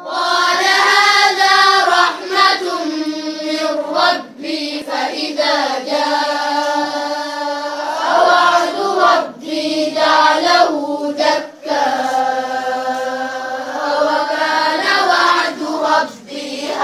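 Young female voices chanting Quran recitation together, in long drawn-out melodic phrases with short breaks between them.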